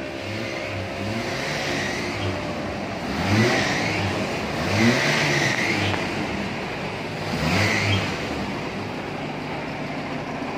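Truck engine running, revved in several short blips that rise and fall in pitch.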